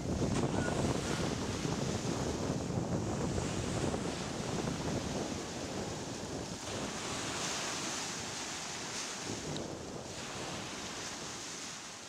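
Sea waves breaking and washing up a sandy beach, swelling and easing with each wave, with wind rumbling on the microphone. The sound fades out gradually.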